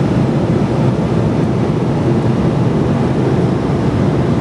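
Steady, loud cabin noise of an airliner: an even rush of engine and air noise, heaviest in the low end.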